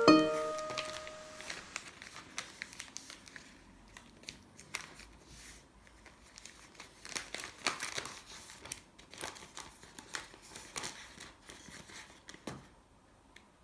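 Newspaper being folded and creased by hand: faint, scattered crinkles and rustles of paper, in small clusters. A piano note from the music fades out in the first second.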